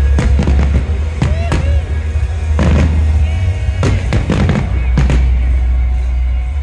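Aerial firework shells bursting again and again, a quick irregular run of bangs, over loud music with a steady deep bass.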